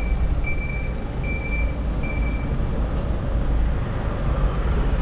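Vehicle reversing alarm: short, high single-tone beeps repeating about once every 0.8 seconds, stopping about halfway through, over a steady low rumble.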